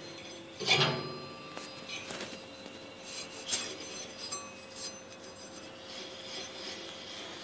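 Steel flue damper plate being turned by hand on its threaded rod over a smoker's stack pipe: metal scraping and clinking, loudest about a second in, then lighter clicks and scrapes that die away after about five seconds.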